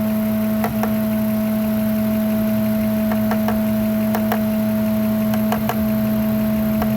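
Ford F-150 engine idling with a steady hum and about ten irregular light ticks. This is the strange noise and vibration that the mechanic suspects comes from the idle air control (IAC) valve passing air and not closing properly.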